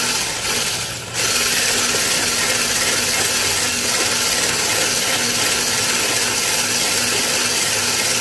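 Handheld electric whisk whipping all-purpose cream in a stainless steel bowl, its motor running steadily. The sound dips briefly just before a second in, then picks up again and holds.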